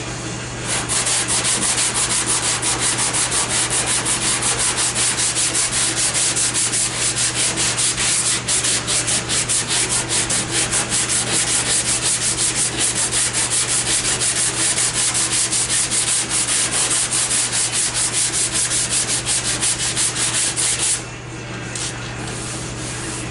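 Hand sanding: a folded sheet of sandpaper held flat under the palm, rubbed quickly back and forth over body filler on an MGB's dog-leg panel. A fast, steady run of scratchy strokes that stops shortly before the end.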